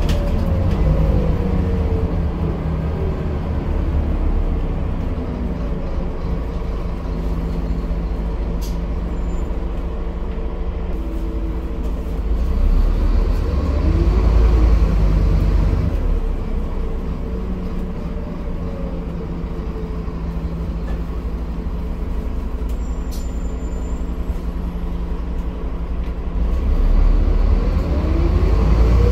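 Scania N230UD double-decker bus's five-cylinder diesel engine running on the road, its pitch rising and falling several times as it accelerates and changes gear. It gets louder about halfway through and again near the end.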